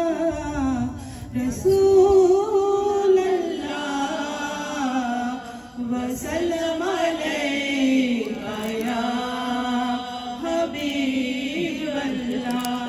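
A group of women singing an Urdu naat together without instruments, the lead voices on handheld microphones, holding long notes that slide up and down in pitch.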